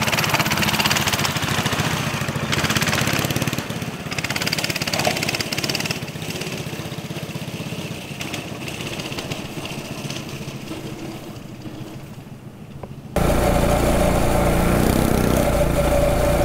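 Small minibike engine running as the rider pulls away, growing quieter as it moves off. About three-quarters of the way through, it cuts suddenly to a loud, steady rumble of wind on the microphone, with the engine close, while riding along.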